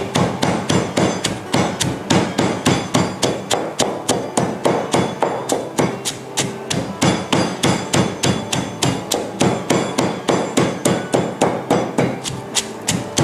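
Stone pestle pounding garlic, lemongrass and spices in a heavy stone mortar, a steady run of sharp strikes at about three a second, grinding them to a paste.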